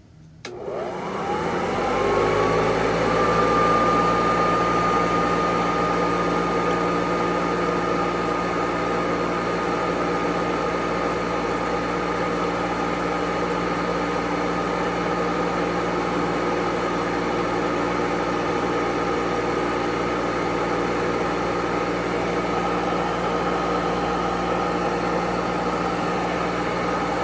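Hoover Model 28 vacuum cleaner switched on with a click, its motor whining up in pitch over about two seconds and then running steadily at full speed, with the brush-roll belt fitted.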